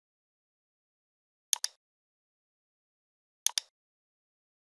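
Computer mouse clicking: two quick pairs of sharp clicks about two seconds apart, with silence between.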